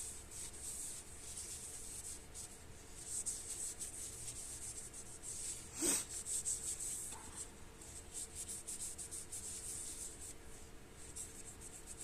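Cloth rubbing quick wiping strokes over a steel folding-knife blade to clean smudges off it, with one louder swish about six seconds in.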